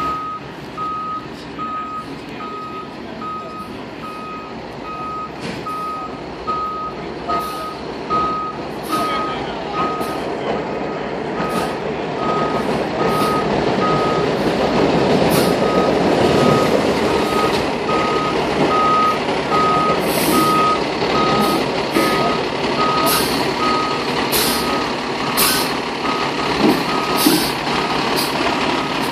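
Fire engine's reversing alarm beeping steadily, about one and a half beeps a second, as the rig backs in, over its diesel engine running, which swells loudest midway as the truck passes close. Short sharp hisses come more often toward the end.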